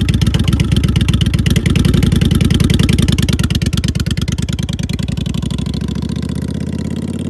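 Kawasaki VN800B's V-twin engine running just after starting, with a fast, even exhaust beat. It settles slightly and gets a little quieter from about halfway through as the idle comes down.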